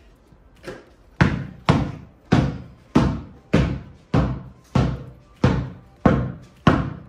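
A basketball bounced steadily on a carpeted floor, dribbled about ten times at roughly one bounce every 0.6 seconds. Each bounce is a sharp thud with a brief ring, starting about a second in.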